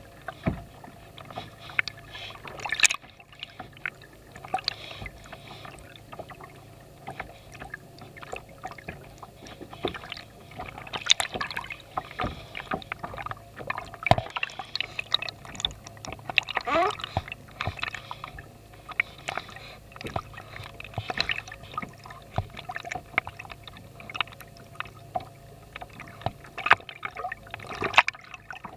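Water gurgling and sloshing around an underwater camera on a plastic kayak hull, with many scattered clicks and knocks and a steady low hum.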